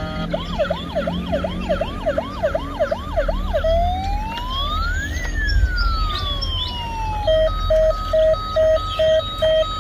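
Toy ambulance's electronic siren sounding. First a fast yelp of about three rising sweeps a second, then one slow wail that rises and falls, then for the last few seconds a steady beeping about twice a second.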